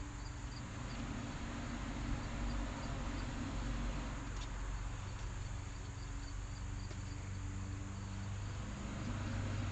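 RecTeq RT-590 pellet grill running at its low-temperature smoke setting, its fan giving a steady low hum. Faint high chirps repeat a few times a second over it.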